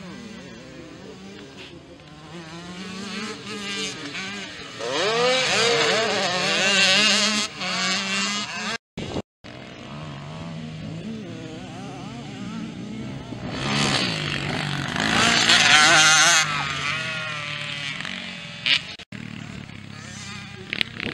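Small-displacement motocross bikes racing past, their engines revving hard with the pitch repeatedly climbing and falling through throttle changes and gear shifts. The engines are loudest about five to eight seconds in and again about fourteen to sixteen seconds in. The sound cuts out twice briefly about nine seconds in.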